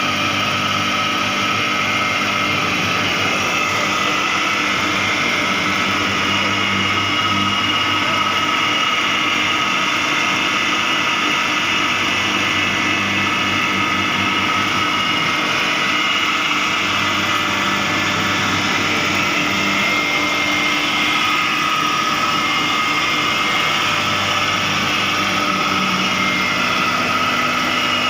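Gas-fired thermal oil heater of 600,000 kcal running on test: a loud, steady mechanical noise with a couple of high steady tones over it and a low hum that fades in and out.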